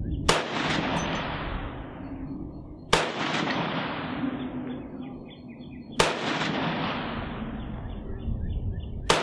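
Four single shots from a CMMG Anvil semi-automatic rifle in .458 SOCOM, fired slowly about three seconds apart. Each shot has a long echoing tail that fades over a couple of seconds.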